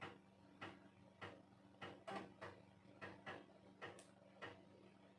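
3.5-inch floppy disk drive clicking faintly as its head steps across the disk, short clicks about every half second, over a low steady hum.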